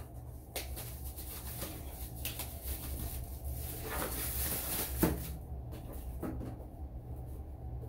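Scattered light clicks and knocks of a white desk part being handled and fitted to a glass-topped desk, with one sharper knock about five seconds in, over a steady low hum.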